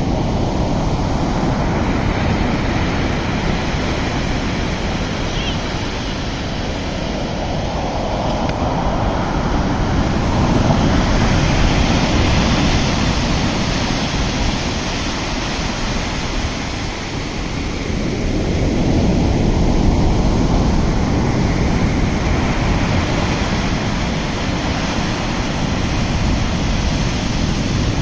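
Sea waves surging and washing in, the roar swelling and easing about every eight to ten seconds.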